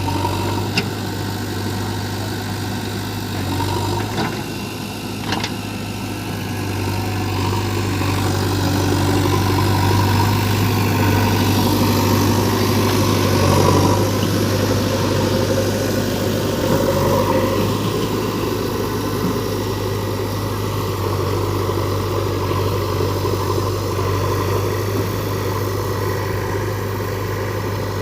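Heavy diesel machinery engine running steadily with a deep hum, growing louder for several seconds midway. A few sharp knocks sound in the first six seconds.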